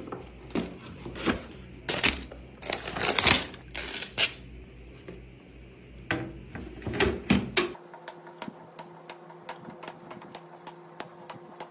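Hands handling PC parts during assembly: irregular clicks, knocks and rustles. About three-quarters of the way through the sound changes abruptly to a steady run of light ticks, about three a second.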